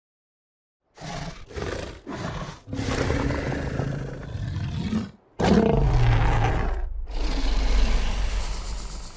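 Spinosaurus creature sound effect: after a second of silence, a few short growls, then a roar of about two seconds and, after a brief break, a longer, deeper rumbling roar that fades near the end.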